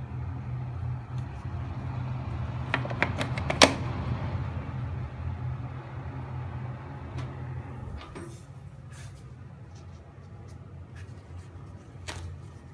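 Sanki bathroom exhaust fan running with a steady low motor hum, which grows quieter after about eight seconds. About three seconds in there is a quick run of clicks ending in one sharp knock, with a couple of single clicks later.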